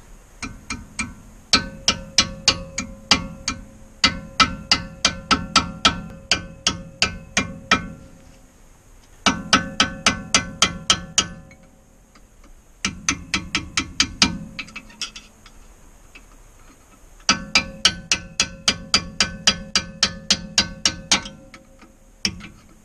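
Hammer striking a punch to drive the sliding retaining plate back into a disc brake caliper on a 1987 Chevy P30 chassis. It comes as runs of sharp, ringing metal taps, about three or four a second, with short pauses between runs.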